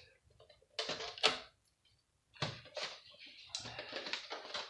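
Clicks and knocks of a PlayStation 3's plastic and metal parts being handled during disassembly: a few separate taps, then a quicker run of rattling clicks near the end.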